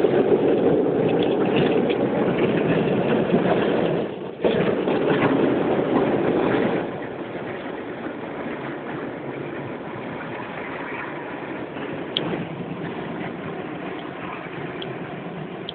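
Loud rushing noise of an automatic car wash, heard from inside the car. About seven seconds in it drops to a quieter, steady noise of the car running.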